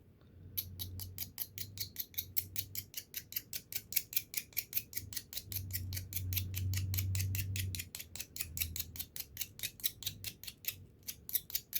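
Back of an X-Acto blade scraping rapidly along a wire, about six strokes a second, stripping it down to bare metal for soldering.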